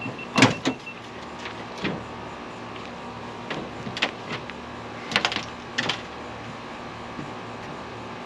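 A pickup truck's tailgate unlatched and dropped open with a clunk about half a second in, then scattered knocks and clanks as an aluminium rod rack is set into the truck bed and someone climbs in, over a steady low hum.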